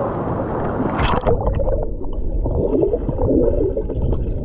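A GoPro action camera dipping under the water of a waterfall pool about a second in: the open-air rush of falling water gives way to muffled underwater sound with bubbling and gurgling.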